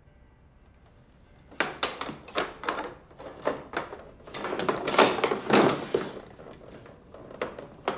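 A long white cane clattering and knocking on a wooden floor as it is dropped and groped for: a string of sharp irregular knocks starting about one and a half seconds in, thickest near the middle.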